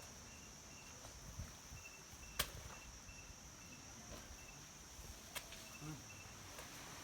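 Faint insects chirping: a steady high drone with a short high note repeating about twice a second. Two sharp clicks sound, about two and five seconds in.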